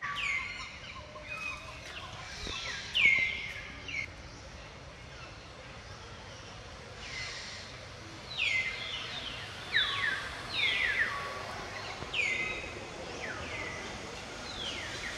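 Birds calling: short high whistles that each slide down in pitch, repeated every second or so and sometimes overlapping. The loudest comes about three seconds in.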